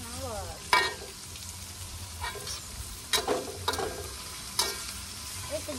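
Vegetables sizzling as they are stir-fried in a metal wok, with a steady frying hiss. A metal spatula scrapes and knocks against the pan a few times, sharply about a second in and again around the middle.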